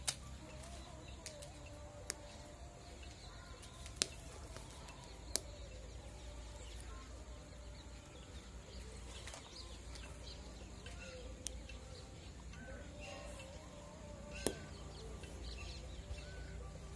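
Birds calling on and off over a steady outdoor background, with a handful of sharp clicks as corn cobs are set on the embers of a clay chulha.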